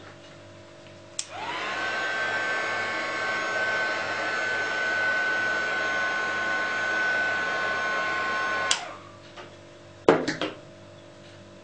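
Craft heat gun switched on with a click, its fan spinning up into a steady rush of air with a high whine, running for about seven seconds before it is clicked off and winds down. A few sharp knocks follow near the end.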